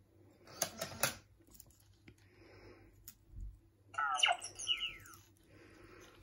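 Toy robots' electronic sounds: two short noisy bursts about half a second and a second in, then a quick run of sliding, chirping bleeps around four seconds in.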